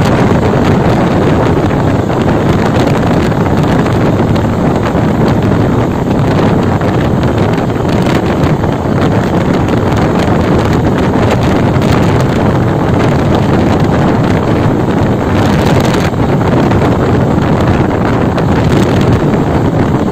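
Steady wind rush on the microphone of a moving motorcycle, with the bike's running and road noise underneath.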